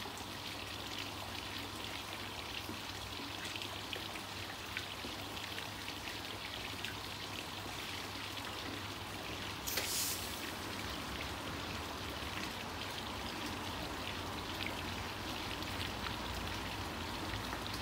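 Garden pond fountain splashing steadily, an even patter of falling water over a low hum. A short hiss about ten seconds in.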